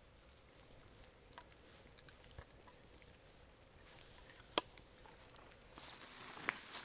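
Quiet outdoor ambience with scattered faint clicks and one sharper tick about four and a half seconds in. Near the end the background rises and footsteps on grass and rock begin.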